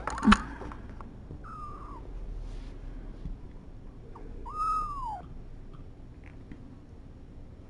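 Young kittens mewing: two thin, high mews about three seconds apart, the first falling and the second arching up then falling away. A short loud burst comes right at the start.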